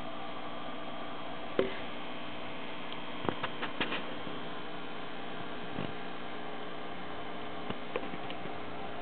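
Steady hum of running aquarium equipment, with a few sharp clicks and knocks scattered over it: the loudest about one and a half seconds in, and a quick cluster around three to four seconds in.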